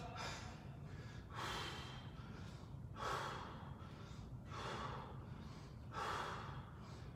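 A man breathing hard from exertion, a heavy breath about every second and a half.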